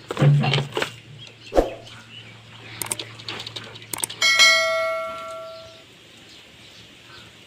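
A few knocks and clicks, then, about four seconds in, a single metallic ding that rings out with several overtones and fades over about a second and a half.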